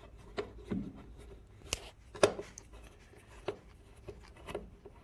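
Scattered light clicks and knocks, about six in five seconds, from hand tools and parts being handled while a motorcycle's air filter cover is being unscrewed.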